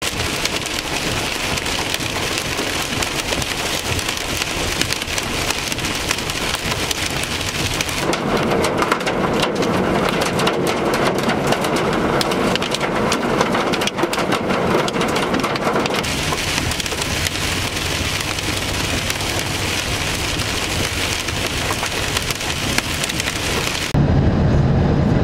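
Hail and heavy rain pelting down in a steady hiss. In the middle stretch, hailstones strike a gravel road with many sharp ticks. Near the end it cuts to the steady road noise of a vehicle driving.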